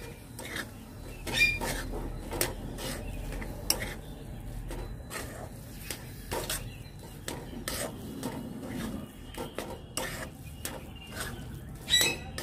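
Metal spatula scraping and clinking against a metal karai, stirring crumbly chhana mixed with powdered milk in irregular strokes.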